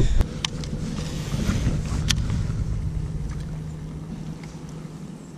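Bass boat's electric trolling motor humming steadily at one low pitch, with a few sharp clicks in the first two seconds.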